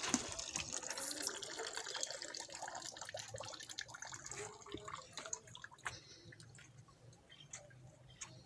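Water pouring from a hand pump's spout into a bucket of water, the stream fading away over the first few seconds, then only a few faint ticks.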